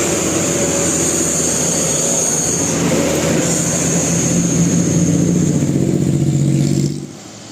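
Bus engine running and revving, growing louder, then cut off suddenly about seven seconds in.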